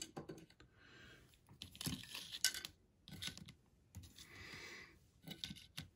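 Clear acrylic card display stands being set down and arranged on a tabletop: a series of light plastic taps and clicks with soft rustling between them.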